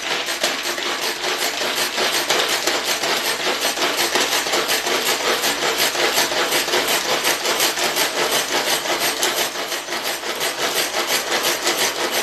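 Rapid, rhythmic rasping scrape of a hand-held kitchen tool worked back and forth, about four or five strokes a second, held steady and loud throughout.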